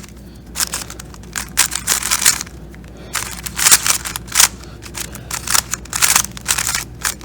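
New, unlubricated GAN magnetic 3x3 speedcube turned fast during a solve: quick runs of plastic clicking and clacking from the layers, in bursts with short pauses.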